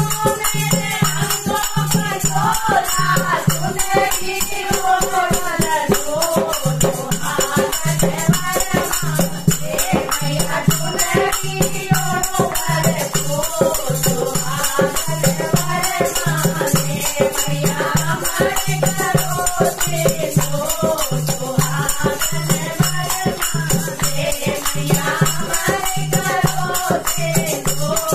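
Group of women singing a Hindu devotional bhajan together, accompanied by a dholak drum, small brass hand cymbals (manjira) and hand clapping in a steady rhythm.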